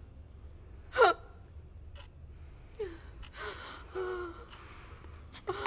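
A woman's gasping, strained cries: a sharp high cry falling steeply in pitch about a second in, then a shorter one, followed by breathy gasps.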